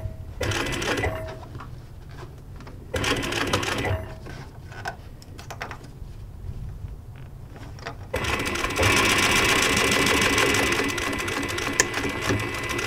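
Industrial sewing machine stitching denim: two short runs, near the start and about three seconds in, then a longer steady run from about eight seconds in to the end.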